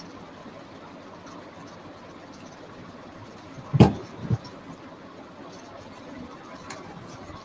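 Two thumps about half a second apart, the first much louder, over a steady background hiss.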